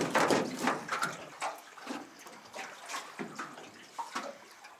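Wet splashing and slapping as a freshly landed snapper is worked free of a dripping landing net on an aluminium deck, in irregular short bursts that grow fainter toward the end.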